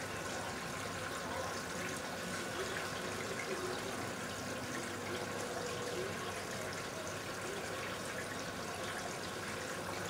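Steady rushing background noise with a faint, steady high whine through it.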